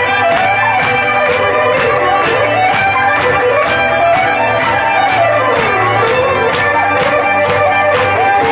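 Live traditional folk band playing a tune together: bagpipes and two fiddles carry a gliding melody over acoustic guitar, with a steady low drone and a regular beat of about three strokes a second.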